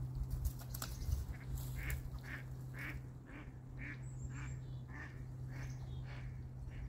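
Mallard ducks quacking: a run of about ten quacks, roughly two a second.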